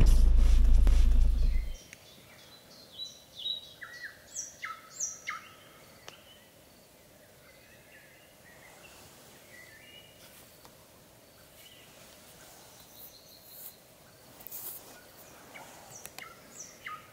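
A vehicle engine's low rumble stops abruptly about two seconds in. Birds then sing in the open fields: short whistled notes, several falling in pitch, bunched a few seconds in, with fainter chirps near the end.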